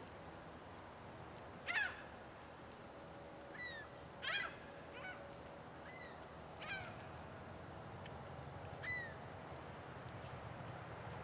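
Birds calling: three loud, harsh calls about two, four and a half, and seven seconds in, with softer short chirps between them.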